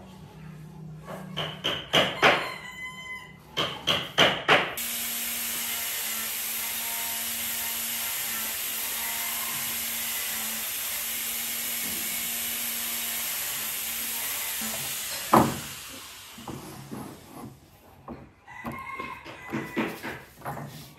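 Pine boards knocking and clattering against each other and the workbench as they are stood up and pressed together for a glue-up. About five seconds in, a steady hiss with a faint low hum starts abruptly, runs for about ten seconds and fades out, and the knocking of boards resumes near the end.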